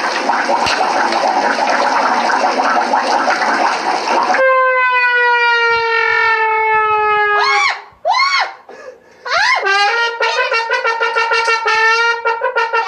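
A loud noisy rush for about four seconds, then horn-like sound effects: one long, slightly falling note, a few short swooping notes, and a pulsing held note near the end.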